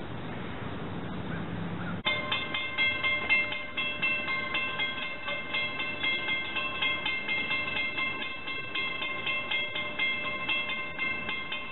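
A steady low rumble of road traffic. About two seconds in it gives way abruptly to a railroad grade-crossing warning bell ringing rapidly and evenly, about three strikes a second.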